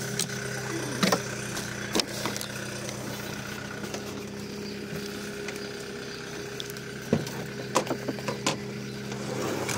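An engine idling with a steady, even hum, broken by a few sharp knocks and clatters as fishing gear is packed into a small aluminium boat.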